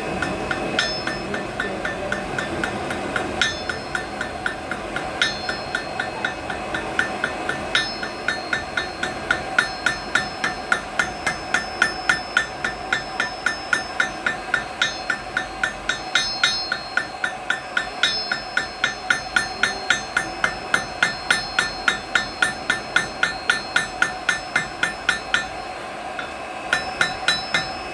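Blacksmith's hammer striking hot iron on an anvil, each blow ringing. A few scattered blows at first, then a fast, regular run of about two to three blows a second that stops near the end, followed by a short final burst of blows.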